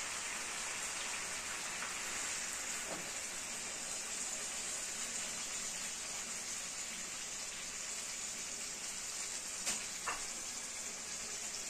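Steady sizzling of sausage and potato cubes frying in a pan on a gas burner, with a couple of faint clicks near the end.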